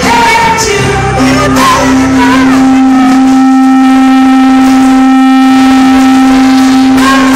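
Live rock band playing through a PA, with one long note held loud and steady from about a second in until near the end.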